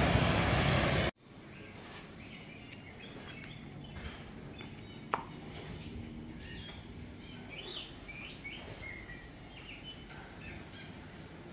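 About a second of loud street noise, cut off abruptly, then small birds chirping with many short calls over a quiet outdoor background, with one sharp click about five seconds in.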